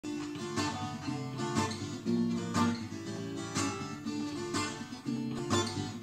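Acoustic guitar strummed in a steady rhythm of about two strokes a second, the chords ringing on between strokes and changing every second or two.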